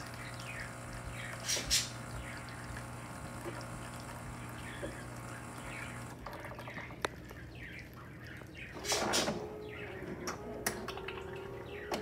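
Gaggia Syncrony Logic super-automatic espresso machine running its pump and humming steadily while coffee streams into the cup. The hum stops about six seconds in, followed by a click, a brief burst of noise about nine seconds in, and then a steady tone.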